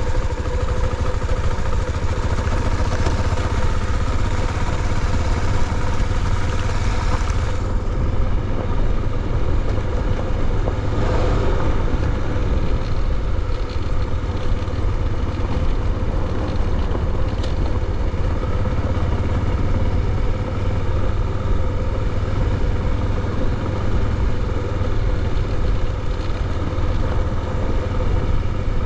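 Motorcycle engine running at a steady pitch while riding on a gravel road, with heavy wind rumble on the microphone and tyre noise on the gravel.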